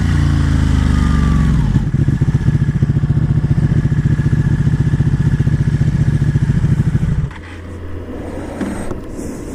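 Ducati 1199 Panigale's V-twin engine, its pitch falling over the first two seconds as the revs drop. It then runs steady and pulsing at low revs, and drops away sharply about seven seconds in.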